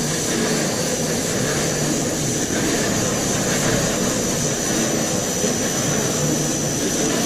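Pallet stretch-wrapping machine running steadily: a constant mechanical hum and rush with a thin high-pitched whine held over it.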